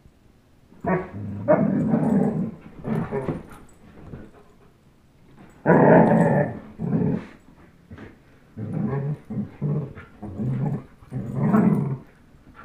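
Dogs growling in play during tug of war over a rope toy, a German Shepherd and an Old English Sheepdog. There is a string of low growls of up to about a second and a half each with short pauses between them, loudest about halfway through.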